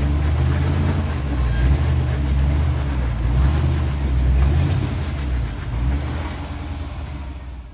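Off-road truck engine running steadily at low revs, a deep even hum that eases off a little near the end.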